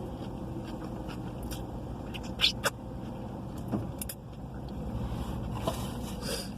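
Steady low hum of a car running, heard from inside the cabin, with a few short sharp clicks and smacks from eating. The loudest two come about two and a half seconds in.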